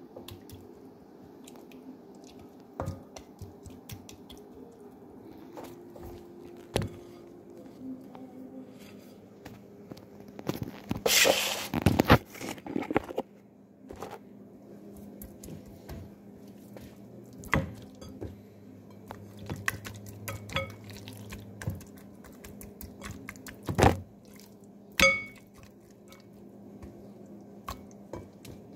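Hands working kiwi marinade into raw lamb chops: wet handling of the meat with scattered knocks and clinks of dishes and a glass bowl, over a steady low hum. A louder, noisy stretch lasts about two seconds a little before halfway, and a few sharper knocks come later.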